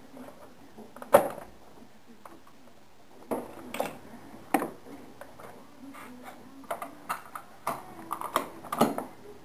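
Scattered sharp clicks, clacks and knocks of parts being handled in a GY6 scooter's engine bay as the carburetor is worked loose and wiring connectors are unplugged. The loudest is a single sharp knock about a second in, and the clicks come thicker in the last few seconds.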